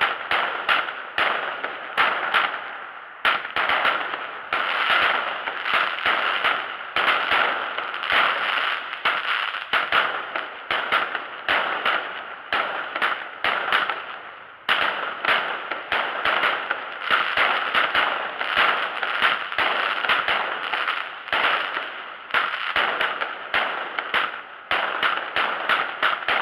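Aerial fireworks launching and bursting in rapid succession: a dense run of bangs and crackling, with short lulls about three seconds in and again near fifteen seconds.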